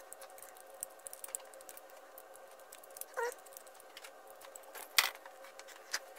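A utility knife stripping the plastic sheath off a white cable, heard as faint scattered ticks and small scrapes. There is a short squeak about three seconds in, and a sharp click about five seconds in as the knife is set down on the wooden floorboards.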